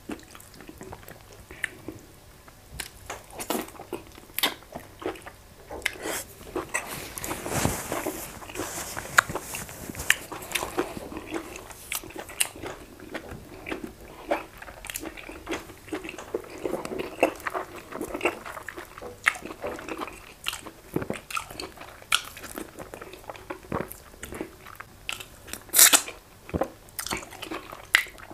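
Close-miked eating sounds: chewing of goat meat in a thick soup, with many wet mouth clicks and lip smacks. Louder smacks come near the end as the fingers are licked.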